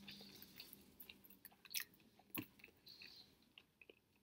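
Faint close-up chewing of a mouthful of sandwich, with a few short, sharp wet mouth clicks.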